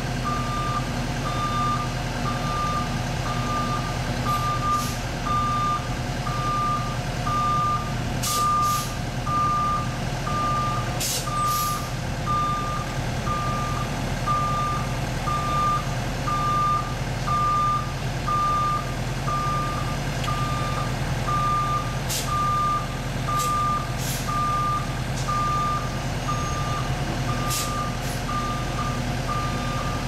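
Backup alarm on asphalt paving equipment beeping steadily, about one beep a second, over the steady drone of diesel engines running. A few brief sharp noises cut through now and then.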